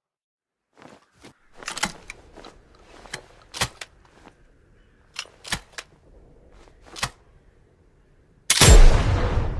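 Double-barrel hunting shotgun: a string of sharp single clicks and knocks spread over several seconds, then one loud shot near the end with a long ringing tail.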